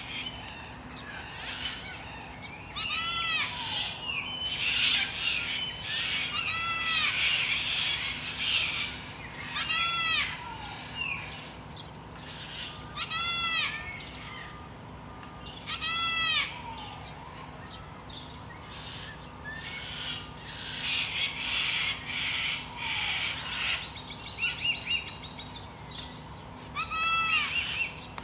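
A bird gives the same short arched call, with several overtones, six times, mostly every three to four seconds, with a long pause before the last. Other birds chirp throughout, over a steady high insect drone.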